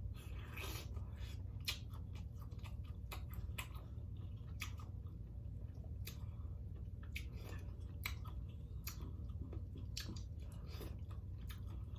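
Close-up chewing of crab meat, with irregular wet clicks and mouth smacks scattered through, over a steady low hum.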